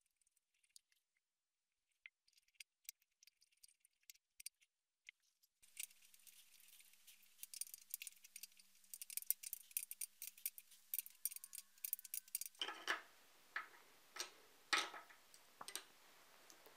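Faint, irregular metallic clicks and ticks of a small screwdriver turning the cover plate bolts into a metal telescope cover plate, sparse at first and coming thicker from about six seconds in.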